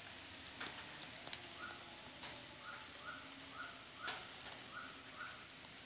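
An animal giving a run of short, slightly rising calls, about two a second, over a steady high insect drone. A few sharp clicks sound among the calls, the loudest about four seconds in.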